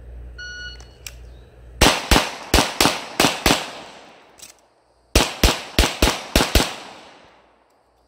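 A shot timer beeps once. About a second later a handgun fires six quick shots in under two seconds, stops for about a second and a half during a magazine change, then fires six more in quick succession.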